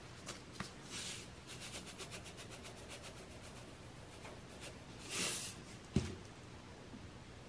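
A white substance poured from a tub into a small ceramic bowl: faint ticking and rustling, a short hiss about five seconds in, then a single sharp knock about six seconds in.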